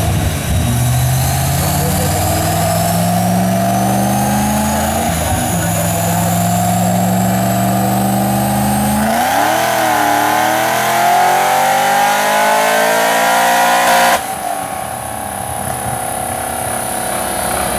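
Chevrolet Corvette ZR1's V8 making a full-throttle pull on a chassis dyno: the engine note and a high whine climb steadily in pitch, with a couple of brief breaks where the pitch drops and climbs again. About 14 seconds in the throttle closes suddenly, and the engine winds down more quietly while the rollers coast.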